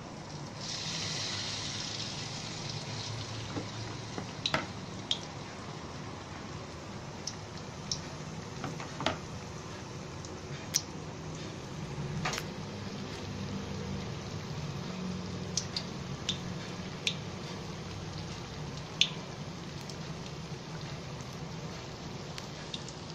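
Battered banana slices deep-frying in hot oil in a steel wok: steady sizzling and bubbling, with scattered sharp pops and crackles of spitting oil. About a second in the sizzle rises briefly as another batter-coated slice goes into the oil.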